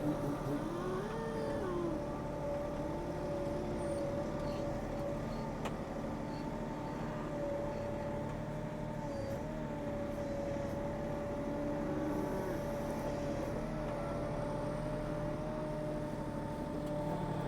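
A vehicle engine runs steadily with a constant whine while Highland cattle moo several times in drawn-out calls that rise and fall in pitch.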